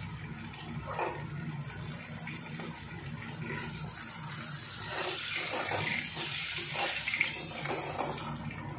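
Rohu fish pieces frying in hot mustard oil in a metal karahi: the oil sizzles steadily, growing louder about halfway through, with a few short scrapes and taps of a metal spatula against the pan as the pieces are turned and lifted.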